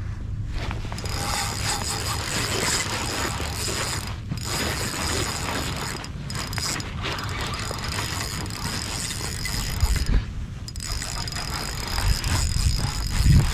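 Drag of a Penn Battle III spinning reel clicking rapidly as a hooked fish pulls line off. It starts about a second in and runs in spells broken by a few short pauses, over a low rumble of wind on the microphone.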